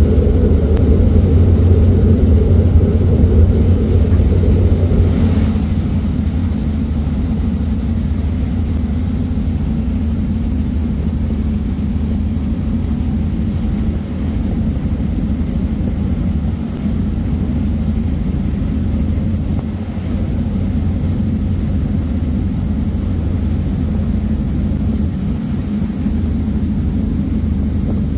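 Passenger ferry's engines running steadily under way, a loud low rumble, heard on deck with water and wind noise. It drops a little in level about five seconds in, then holds steady.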